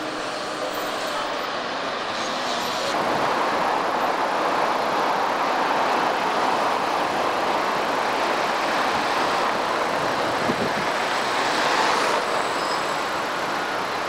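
Steady traffic and road noise of cars driving on a busy city avenue, an even rushing sound that grows louder about three seconds in.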